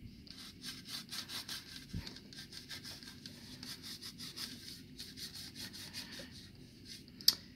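Paintbrush scrubbing acrylic paint onto a plastic action figure's wing in quick back-and-forth dry-brush strokes, several a second, with one sharp click near the end.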